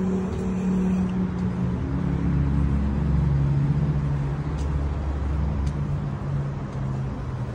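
Road traffic: car engines running in slow-moving traffic on a city street. A deeper, louder engine rumble comes in about two seconds in and fades just before six seconds.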